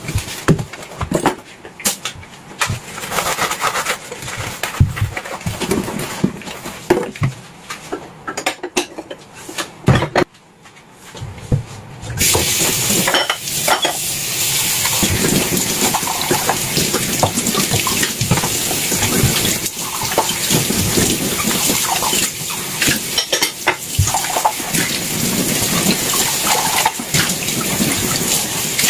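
Dishes and cutlery clinking and clattering in a kitchen sink, then from about twelve seconds in a tap running steadily while the dishes keep clattering under it.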